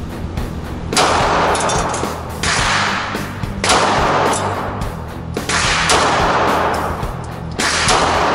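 A 9mm handgun fired in a slow string of shots, about one every one to two seconds, each echoing briefly in an indoor range, with rock background music underneath.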